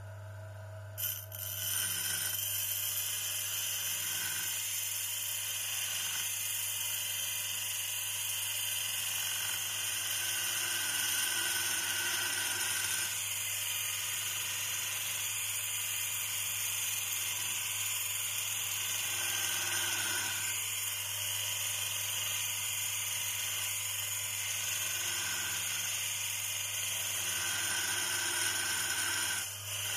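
A small electric motor-driven workshop tool running steadily with a high whine, starting about a second in.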